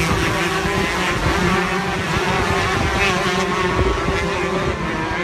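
Two-stroke shifter kart engine running hard at high revs, its pitch wavering a little but holding fairly steady.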